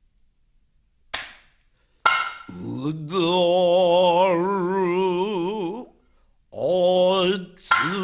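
A single sharp wooden-sounding clack, then a voice chanting long held notes with a wide, slow vibrato, each note sliding up into pitch. The first note holds about three seconds, and the next ones are shorter.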